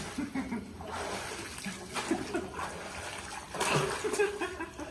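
Water splashing in a pool, with short bits of children's voices and calls mixed in.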